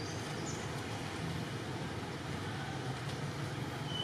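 Steady outdoor background noise with a low rumble, and a few faint, short high chirps near the start.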